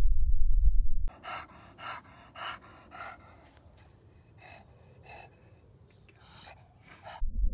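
A stethoscope over a French bulldog's larynx gives a loud low rumble, which cuts off about a second in. Then an English bulldog pants after an exercise test, about eight quick breaths in two groups of four, without the snoring or stridor of an obstructed airway (BOAS grade 0). The low stethoscope rumble comes back near the end.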